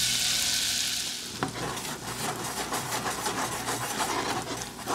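Minced garlic sizzling and crackling in hot olive oil in a small saucepan, a strong hiss for about the first second that then settles to a quieter, steady crackle.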